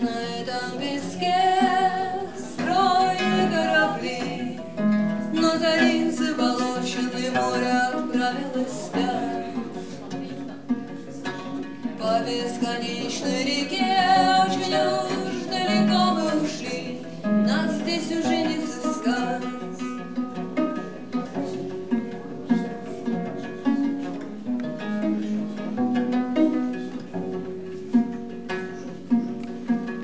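A woman singing a song while plucking the strings of a viola da gamba with her fingers, pizzicato, with short instrumental stretches between the sung lines.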